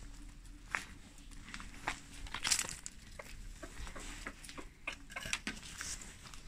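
Scattered light clicks, taps and crunches as a plastic tub of kitchen scraps is handled and hens peck at scraps on bare dirt.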